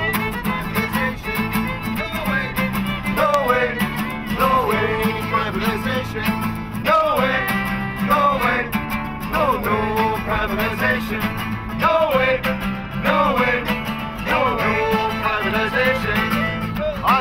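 Instrumental folk tune with a fiddle playing an ornamented melody with sliding notes over a guitar accompaniment.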